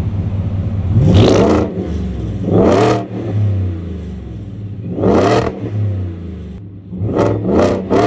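Hennessy VelociRaptor's supercharged V8 idling and revved five times, the last two blips close together. With each rev the turbo whistle clamped in the exhaust tip whistles, its pitch rising with the revs.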